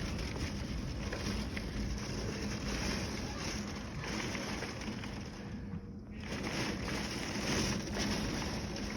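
Heavy rain driven by strong wind, a steady rushing noise that drops away briefly about two-thirds of the way through.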